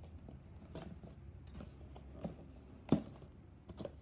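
Handling of a cardboard trading-card box and its contents: about five scattered light taps and knocks as items are lifted out, the sharpest about three seconds in.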